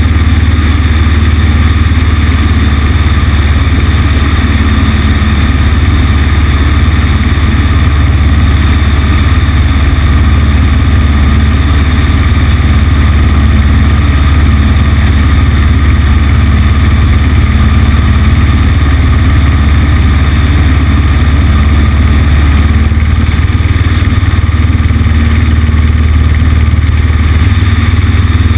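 Cessna 150's four-cylinder Continental O-200 engine and propeller running steadily, heard from a camera on the outside of the right wing, with a low drone and an even rushing noise. The low tone shifts slightly near the end.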